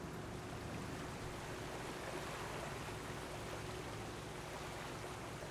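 Steady rush of sea water around a moving ship, with the ship's low engine hum beneath it.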